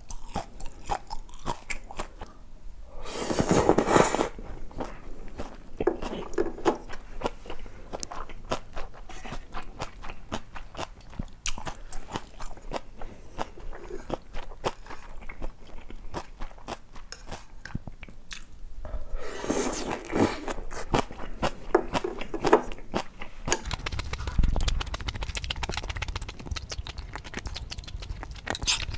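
Close-miked eating of young-radish cold noodles: steady wet chewing with many small clicks and crunches, and two louder slurps of about a second each, one about three seconds in and one about two-thirds of the way through.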